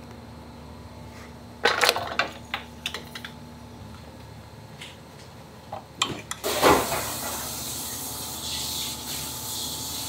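A spatula stirring melted chocolate in a stainless steel mixing bowl during tempering, with a cluster of sharp knocks against the bowl about two seconds in and lighter scrapes and ticks after. About two-thirds through, a loud knock is followed by a steady hiss that carries on.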